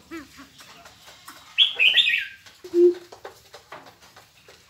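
Caged birds calling: a loud, harsh chattering run of high calls about a second and a half in, then a single short low hoot, with fainter falling calls near the start.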